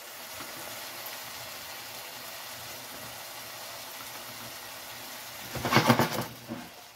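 Shrimp stir-fry in its sauce sizzling in a hot frying pan, a steady even hiss. About five and a half seconds in, a spatula stirs and scrapes the pan, briefly the loudest sound.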